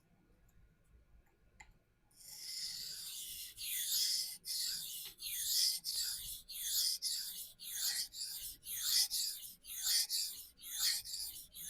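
Knife blade of S30V steel drawn in repeated freehand strokes across a vitrified diamond sharpening stone, about a dozen rhythmic scraping strokes starting about two seconds in. This is heavy steel removal to even out an asymmetric edge bevel.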